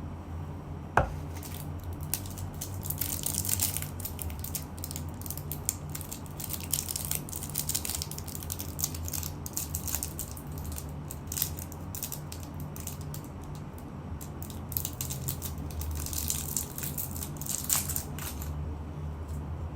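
Close-miked eating sounds: a person chewing, with many small irregular clicks and crackles, and one sharper click about a second in, over a steady low hum.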